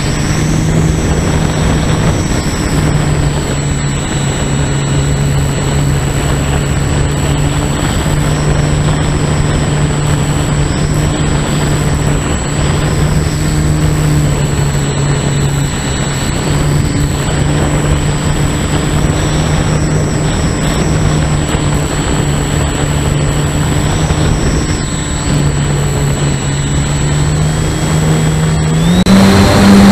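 Brushless electric motor and propeller of a Parkzone S.E.5a model biplane heard from an onboard camera: a steady buzz at part throttle with air rushing over the microphone. Its pitch rises near the end as the throttle opens.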